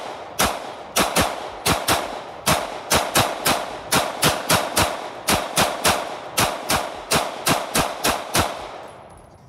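Taurus PT111 9mm pistol with a 30-round extended magazine fired semi-automatically in rapid succession: about two dozen shots at roughly three a second, each with a short echo, stopping near the end.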